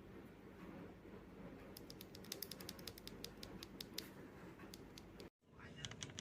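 Typing on a mechanical keyboard fitted with Akko V3 switches: a quick, uneven run of faint key clicks starting a little under two seconds in, cut off abruptly about five seconds in.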